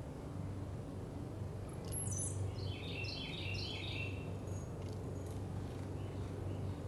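Small bird chirping: a quick run of short, high chirps lasting about two seconds, starting a couple of seconds in, over a steady low hum.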